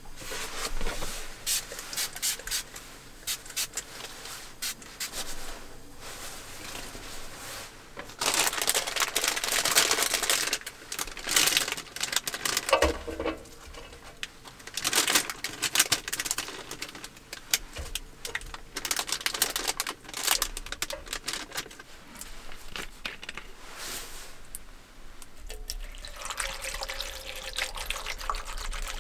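Crinkling of plastic food packaging in repeated bursts while ingredients are handled over the pot. About 25 seconds in, water begins pouring steadily from a plastic bottle into an electric hot pot full of sliced vegetables.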